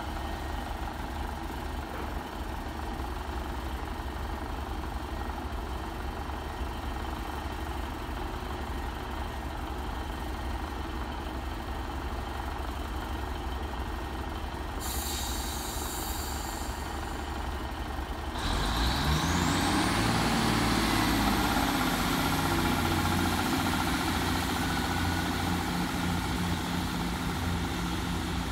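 Class 150 Sprinter diesel multiple unit's underfloor diesel engines running steadily at low power, with a few seconds of high hiss midway. Then the engines open up to full power as the train pulls away, louder, with a high whine that rises and then holds steady.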